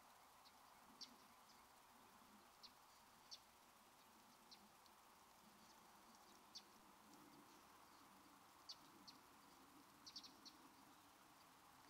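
Faint outdoor night ambience: about a dozen very short, high-pitched chirps from small animals at irregular intervals, a few in quick clusters, over a low steady hiss.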